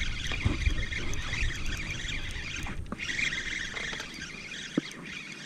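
Fishing reel being cranked to bring in a hooked fish: a fast, fine rattling whir that breaks off briefly near the middle and fades near the end.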